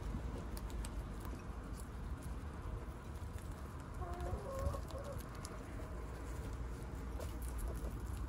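A group of guinea pigs chewing carrot tops and shuffling in wood-shaving bedding, with scattered small crunching clicks. A few short, low pitched animal calls come about four seconds in.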